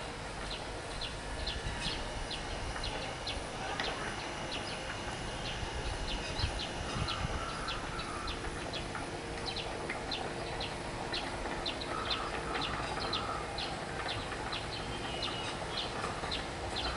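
Small birds chirping, with short, sharp high chirps repeating about two or three times a second, and a lower call breaking in a few times over a steady low background hum.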